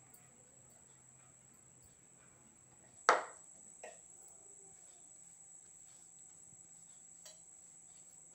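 A single sharp knock about three seconds in and a lighter one under a second later, over a faint, steady high-pitched whine.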